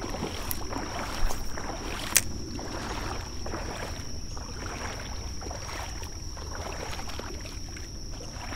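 Shallow creek water running and lightly splashing around someone wading, with two sharp clicks in the first couple of seconds. A steady high-pitched tone runs underneath.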